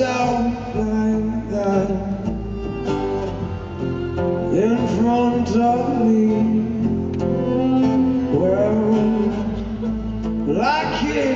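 Male singer performing a song live with acoustic guitar through the PA, his voice sliding up into long held notes over the guitar and steady low accompaniment.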